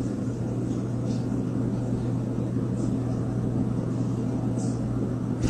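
A steady low mechanical hum with an even rushing noise over it, unchanging, with a few faint soft hisses on top.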